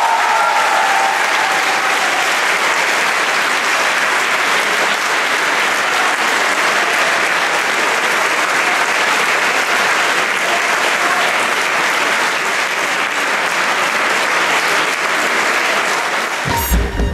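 Sustained audience applause, even and dense, with the last notes of the waltz music dying away in the first couple of seconds. A short, loud low rumble cuts in near the end.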